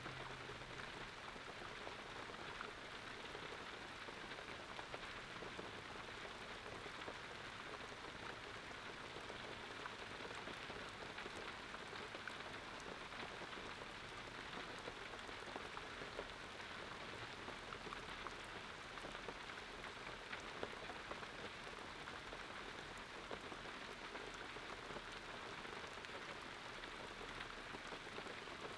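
Faint, steady rain-like patter and hiss, with fine crackles scattered through it.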